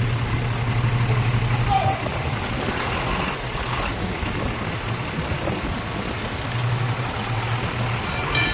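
Doosan forklift engine running under load while it lifts a car on its forks: a steady low engine hum that eases off about two seconds in and picks up again about a second and a half before the end.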